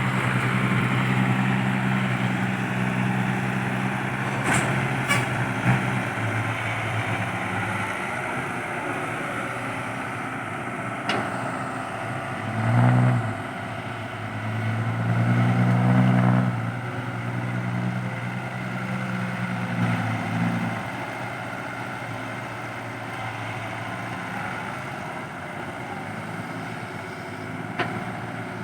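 Diesel engine of a Caterpillar 312B excavator running steadily as it digs and loads a dump truck, swelling louder several times around the middle as it works. A few sharp metallic knocks stand out over it.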